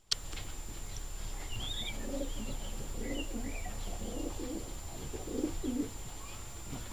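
Racing pigeons cooing in the loft: a string of low coos from about two seconds in until nearly six seconds, with a few thin, high squeaks from pigeon squabs over them.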